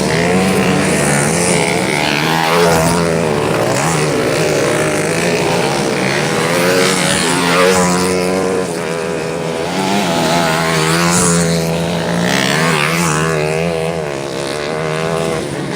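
Several motorcycle engines running hard at high revs, their pitch rising and falling and overlapping as they race on a dirt track.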